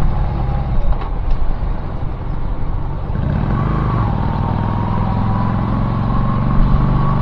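A car driving, engine and road noise running steadily; about three seconds in the engine note grows stronger and then holds.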